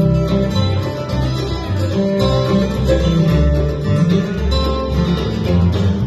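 Acoustic bluegrass band playing: fiddle, acoustic guitar, mandolin and upright double bass, with a steady bass line under the plucked strings.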